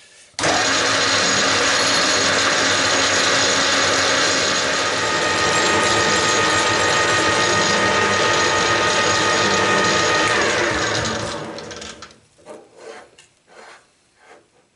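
Metal lathe running with the cutting tool turning a metal plate held in the chuck, a loud, steady machining noise with a few steady tones. About ten seconds in the lathe is switched off and its pitch falls as the spindle coasts to a stop, followed by a few light knocks of the toolpost being handled.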